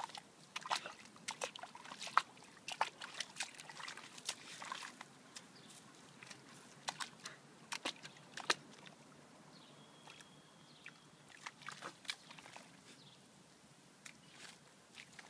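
A dog snuffling and nosing through dry soil, with irregular scrapes and small crackles of grit, busiest in the first half and sparser later.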